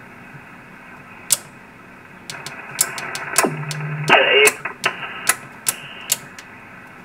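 TenTec Jupiter 538 HF transceiver's receiver hiss from its speaker, broken by a run of sharp clicks as the bands are switched from the front panel. Past the middle a short low steady tone comes in, then a brief loud burst of signal with a falling whistle.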